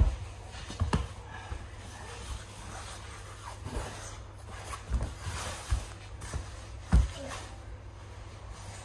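Two men grappling on a padded ring floor: bodies shifting and rolling on the mat, with a handful of dull thumps as weight lands, plus rustling of clothing and breathing.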